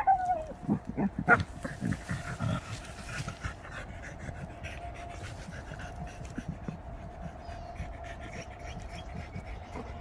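American Pit Bull Terrier panting hard and rhythmically, from the exertion of digging at a burrow. A short high whine comes right at the start, and a few louder scuffling bursts follow in the first few seconds.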